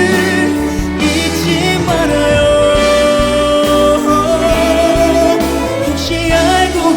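A singer's voice over band accompaniment in a slow ballad, holding long notes: one held steady for about two seconds, then a higher one with vibrato.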